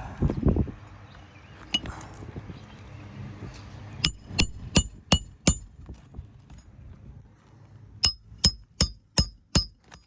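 Hammer driving roofing nails to refasten an asphalt shingle: a run of five sharp, ringing blows about three a second, then after a pause a second run of six. A low thump comes at the very start.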